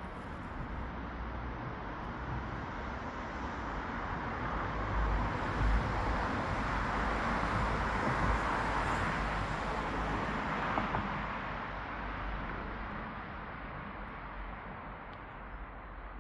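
Rushing noise of a vehicle passing by, growing louder over several seconds, peaking in the middle and fading away.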